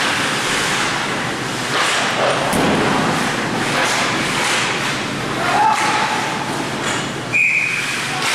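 Ice hockey rink noise: dull thuds of puck and sticks against the boards and ice over a steady arena hubbub, with a brief high tone near the end.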